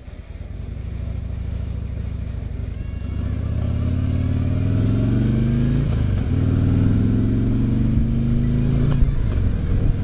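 Harley-Davidson touring motorcycle's V-twin engine pulling away and accelerating through the gears. The pitch climbs, dips at a gear change about six seconds in, climbs again and drops at another shift near the end.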